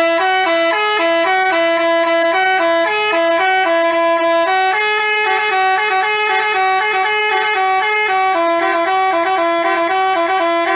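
Basuri telolet musical bus horn playing a quick melody of short stepped notes, hopping back and forth between a few pitches without a break.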